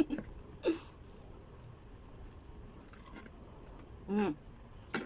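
Quiet mouth sounds of a person eating balut, with a short hummed voice sound about four seconds in and a click near the end.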